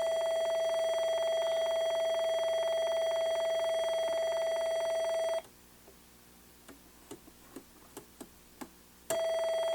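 A steady electronic beep tone, one unchanging pitch, that cuts off abruptly about five and a half seconds in. A few small clicks follow, then the tone comes back on suddenly near the end.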